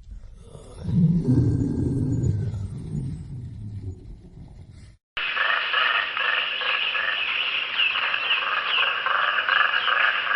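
A large animal's low, rough roar lasting about four seconds. After a brief cut it gives way to a dense chorus of many quick, high chirping calls.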